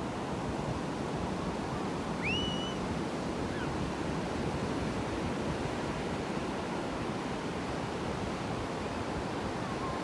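Ocean surf breaking and washing in steadily. About two seconds in there is a brief high-pitched call that rises and then holds.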